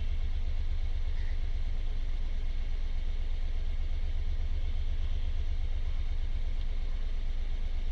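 Diesel car engine idling steadily with a low, even rumble. It holds at idle with no rise in revs, because the forced DPF regeneration it was sent into has not started.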